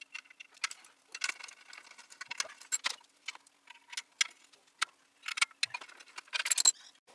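Hand ratchet wrench clicking in short runs, with small metallic clinks, as the bolts of a clutch pressure plate are worked on the flywheel of a Ford flathead V8.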